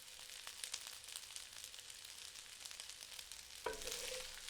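Garlic fried rice sizzling faintly in a hot pan, a soft hiss with small crackles. A brief sound with a short ringing tone comes near the end.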